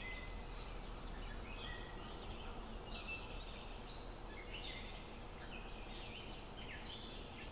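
Many short bird chirps and calls, scattered throughout, over a steady low outdoor background noise.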